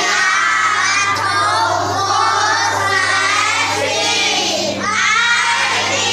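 A group of children singing and chanting a multiplication-table song together, many voices at once.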